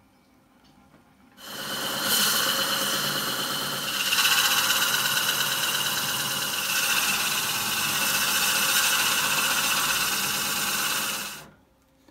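Drill bit in the tailstock drill chuck of a Jet JWL-1221VS wood lathe boring into the end grain of a spinning wooden vase blank: a loud, steady cutting hiss that starts about a second and a half in, gets louder around four seconds in, and cuts off sharply near the end.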